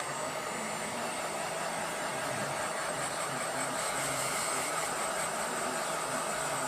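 Hair dryer running steadily: a constant rush of blown air with a thin, high whine on top.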